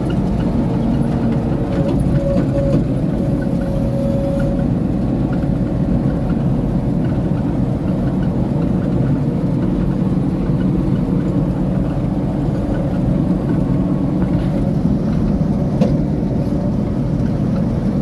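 New Holland 8070 combine harvester running steadily while harvesting, heard from inside the cab: an even drone of the engine and header machinery.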